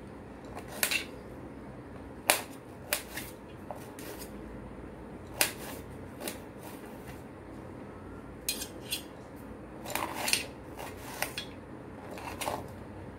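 Knife cutting cauliflower florets into small pieces on a steel plate: the blade knocks and clicks irregularly against the metal, a dozen or so sharp ticks, some in quick pairs.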